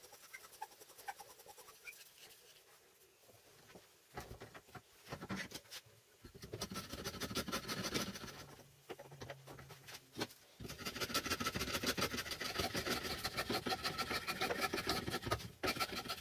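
Rapid scratching and rubbing strokes of hand work on wood: a short spell about six seconds in, then a longer one from about ten seconds until near the end.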